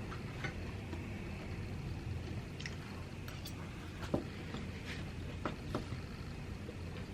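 A person eating: soft, squishy chewing with scattered light clicks, the loudest about four seconds in, over a low steady hum.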